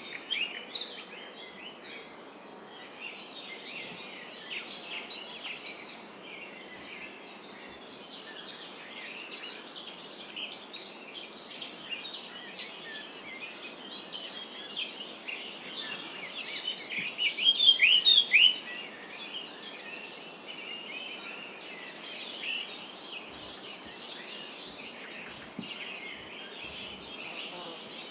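Many small birds chirping and singing together, a dense run of short high chirps over a faint steady hiss, with a louder flurry of chirps about two-thirds of the way through.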